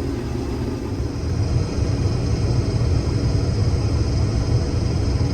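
Case IH 2388 combine running while cutting wheat, heard from inside the cab: a steady low engine rumble with a faint, steady high whine from the machinery.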